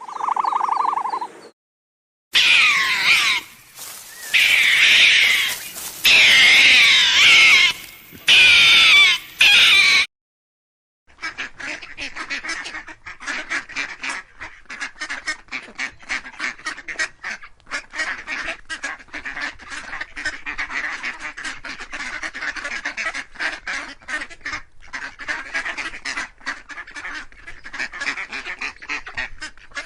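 Ducks and geese calling: a brief steady tone opens it, then loud wavering honking calls for several seconds, then a flock's steady chatter of rapid quacks.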